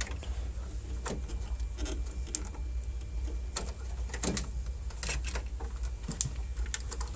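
Keypad cable connectors being unplugged and wires handled inside a vending machine: scattered plastic clicks and rattles over a steady low hum.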